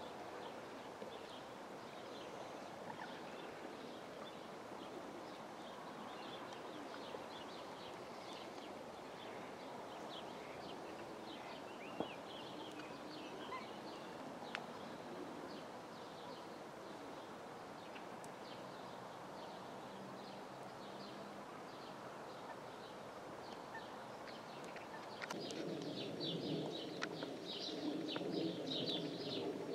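Outdoor ambience with a steady background hiss and scattered faint chirps of small birds. About 25 seconds in it cuts to a louder sound, with dense high chirping over a lower, fuller band of sound.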